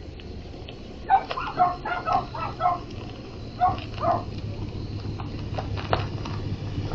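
An animal gives a quick run of about eight short calls in the first half. Under it, a pickup truck's engine hum grows louder as the truck drives up the driveway toward the camera.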